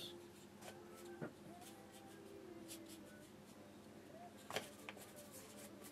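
Near silence: faint scratching of a flat watercolour brush dragged across watercolour paper, with a soft click about four and a half seconds in.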